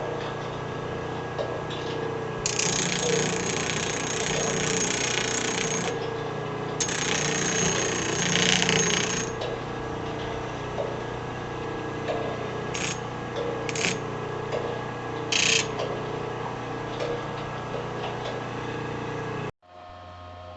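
Bench drill press driven by a converted treadmill motor, running with a steady hum. Two long harsh bursts of several seconds, then three short ones, as the bit cuts. The running sound stops abruptly near the end, leaving a fainter hum.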